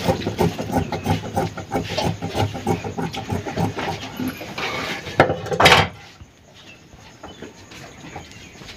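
Large tailor's shears snipping through blouse fabric on a wooden table: a quick run of crunching cuts, with the blades scraping and knocking on the wood. About five and a half seconds in there is a louder clatter, then it goes quiet.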